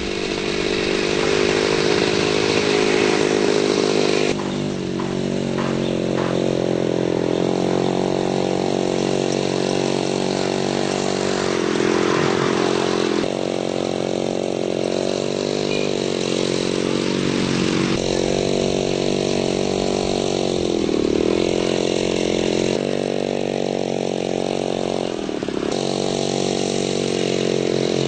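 Small two-stroke chainsaw engine mounted on a bicycle, running, its speed dropping and picking up again several times.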